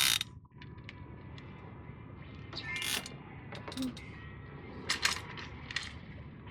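Fishing tackle being handled during rigging: several short clicks and rattles at irregular intervals, the first the loudest, over a steady low outdoor background.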